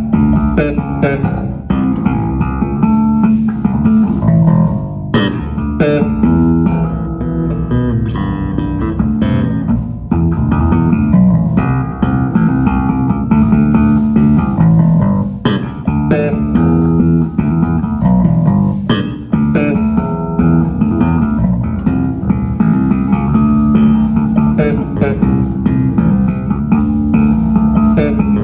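Wolf S7-7 seven-string electric bass played solo through a Phil Jones Bass combo amp set flat with no compression: a continuous passage of plucked notes and chords.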